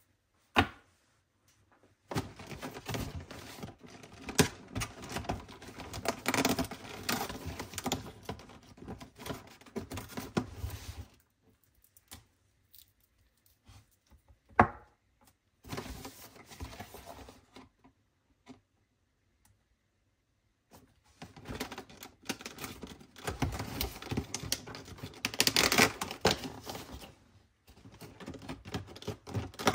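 Fingernails and hands handling a cardboard advent calendar and its small packaged items: rapid clicking, tapping and crackling in two long stretches, with a few single sharp clicks and quiet gaps between.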